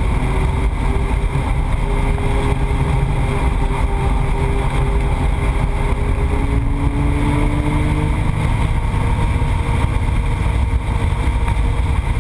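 Car engine running at speed under heavy road and wind noise. Its pitch climbs slowly, drops about six seconds in, then climbs again.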